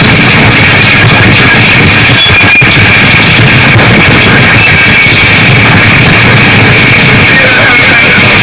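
Harsh noise music played on electronics: a dense, distorted wall of noise held at full loudness, with a brighter band of hiss up high and a very brief dropout about two and a half seconds in.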